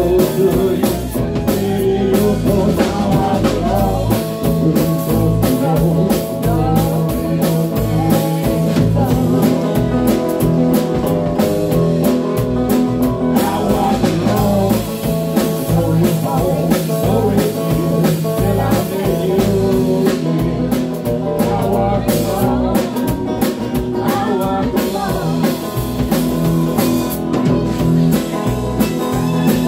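Live band music from fiddle, guitars and bass guitar, played with a steady beat.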